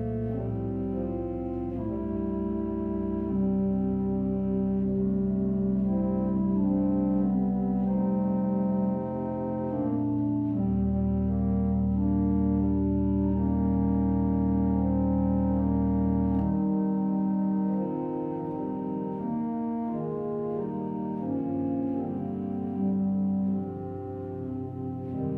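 Church organ playing the service prelude: slow, long-held chords over sustained low bass notes that change every few seconds.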